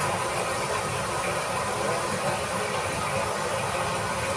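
Food frying in hot oil in a wok, giving a steady sizzling hiss.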